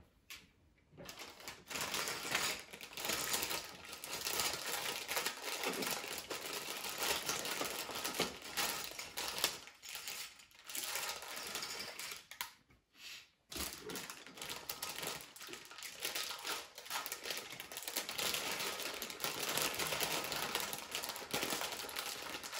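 Small plastic Lego pieces clicking and clattering as they are handled and sorted, a dense run of rapid little clicks with a couple of short pauses.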